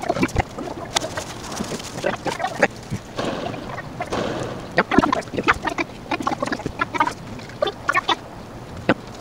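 Fowl calling: many short calls in quick runs, one after another.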